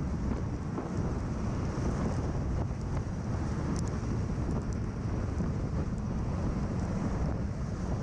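MV-22B Osprey's engines and rotors running at close range as a steady, unbroken noise, with rotor downwash buffeting the microphone.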